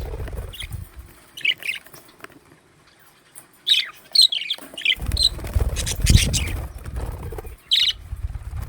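Pet budgerigars chirping in short, scattered calls. Stretches of low rumbling noise come at the start and again from about five seconds in.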